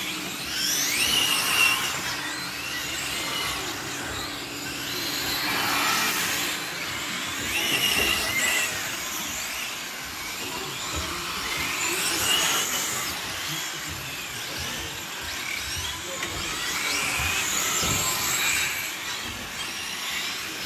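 Electric 1:8 GT radio-controlled race cars on 4S batteries, their motors whining up and down in pitch as they accelerate and brake through the corners. The sound swells each time cars pass close, several times over.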